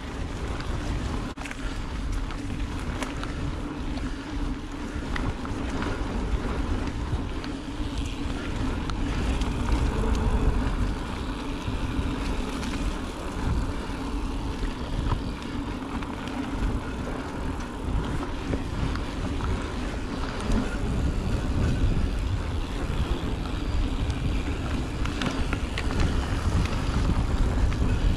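Wind buffeting the microphone over the rumble of mountain bike tyres rolling down a dirt trail at speed, with scattered small clicks and knocks.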